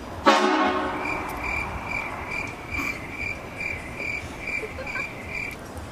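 Train horn blasting suddenly about a third of a second in, a dense chord that dies away within a second. After it a high-pitched beep repeats about twice a second and stops near the end.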